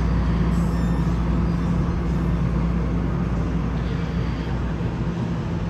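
NJ Transit double-deck commuter train moving slowly past along the platform, with a steady low engine hum and rumble that eases slightly near the end.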